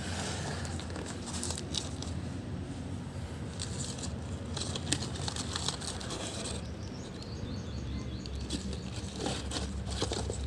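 Paper-tube stick rockets rustling and clicking against each other and the cardboard box as they are handled, with scattered light knocks over a steady low hum.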